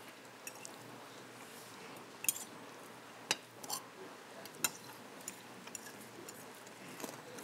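Forks and cutlery clinking lightly against plates as the dish is tasted: about five short, sharp clinks spaced irregularly a second or so apart, over a quiet room.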